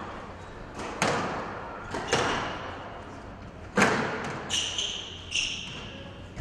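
Squash ball being struck and hitting the court walls in a rally: about four sharp smacks with a ringing echo, with short high squeaks a couple of times in the second half.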